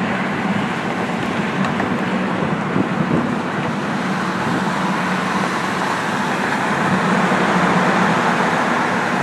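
Steady freeway traffic noise: a continuous drone of tyres and engines with a low hum underneath, swelling slightly near the end.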